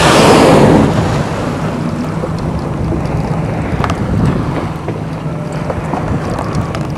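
A loud whoosh right at the start, fading over about a second: the blow of a blue whale surfacing near the boat. Under it the boat's engine hums steadily, with wind on the microphone and the sea lapping.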